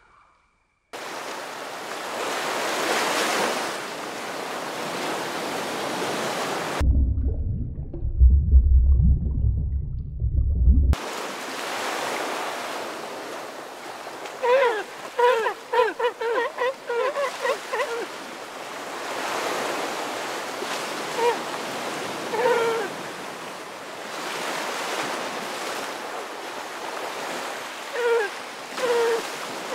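Surf washing on a shore, with a deep rumble for a few seconds. Then a sea lion barks in a quick run of hoarse calls, and there are a few more calls near the end.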